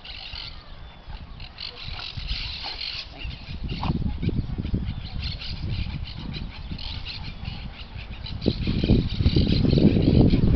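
Small birds chirping and twittering in the background of an open field; from about eight seconds in a louder low rumble builds underneath.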